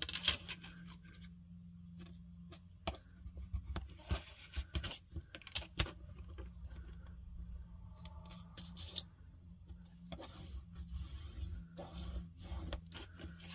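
A scoring tool and a bone folder rubbing and scraping along a plastic ruler on kraft cardboard as fold lines are scored, with scattered clicks and taps of the ruler and tools on the cutting mat. A steady low hum runs underneath.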